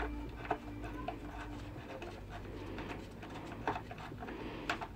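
A few scattered light clicks and knocks of hand tools on metal while the motorcycle's upper engine bracket bolts are undone.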